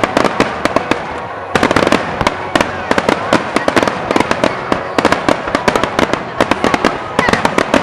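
Fireworks going off in a rapid display: a dense stream of sharp cracks and bangs, several a second, overlapping one another, with the crackle thickening about a second and a half in.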